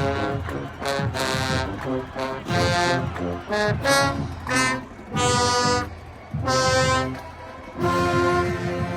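Band brass playing a series of short, loud blasts over drums, then settling into a long held chord near the end.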